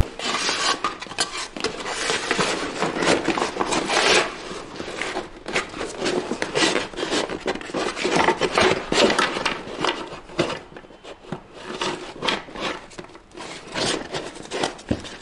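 Hands rubbing and scraping a kayak's fabric hull skin and its rigid seat, which serves as the spreader, as the seat is worked into place inside the hull: continuous irregular rustling with scattered small knocks, busier in the first half.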